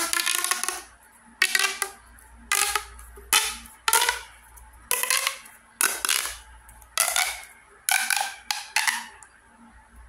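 A corrugated plastic straw pop tube fidget toy being pulled out and pushed back in, its ribbed segments snapping open and shut in quick ratcheting runs: about ten short bursts, each lasting under a second, with brief pauses between.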